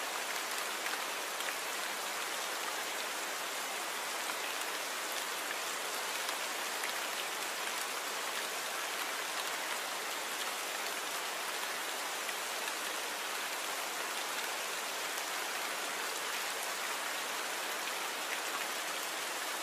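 Torrential rain falling steadily, a dense even hiss of downpour with faint scattered drop ticks.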